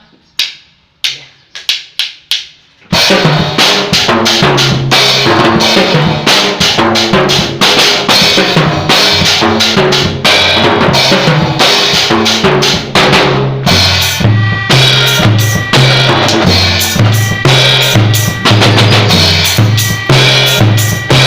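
A few sharp clicks, then about three seconds in a drum kit starts a fast, busy beat of kick, snare and cymbals over a moving bass line, with a short break about two-thirds of the way through.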